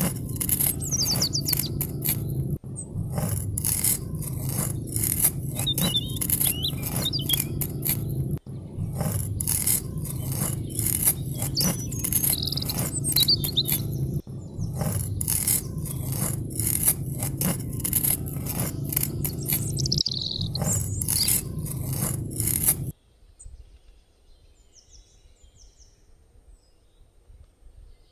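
A loud, rhythmic scratching of a small metal tool through loose soil, with small birds chirping over it. The scratching stops suddenly about 23 seconds in, leaving only faint chirps.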